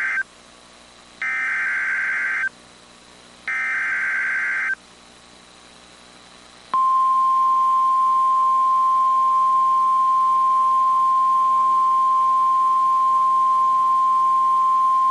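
NOAA Weather Radio Emergency Alert System tones: SAME digital header bursts, each about a second long and a second apart (the end of one, then two more), the coded header that opens a new warning. After a short pause the steady 1050 Hz warning alarm tone starts about seven seconds in.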